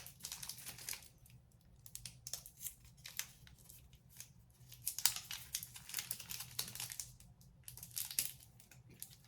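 Needle packaging crinkling and tearing, with irregular small clicks and crackles of handling, as the needle on a syringe is swapped for a fresh one.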